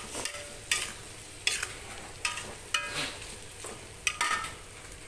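A spatula stirs shredded chicken in a hot pan: repeated scrapes and knocks against the pan, about one every half to one second, over a steady sizzle of the chicken frying with its seasoning.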